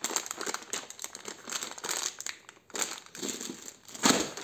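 Thin clear plastic bag crinkling and rustling as it is handled, full of small plastic drip-irrigation nozzles, with a louder, sharper rustle about four seconds in.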